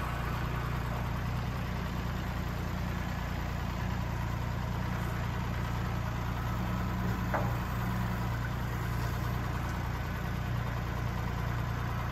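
Kubota compact tractor's diesel engine running steadily at low revs while the tractor manoeuvres.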